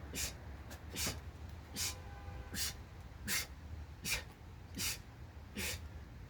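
A man's forceful, hissing breaths through the nose, one with each push-up rep, about one every 0.8 seconds.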